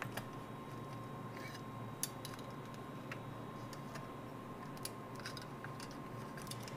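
Scattered faint clicks and taps of small flex-cable connectors and a hand tool being worked on an opened MacBook Pro's logic board, as the cables are plugged back in. A steady faint hum runs underneath.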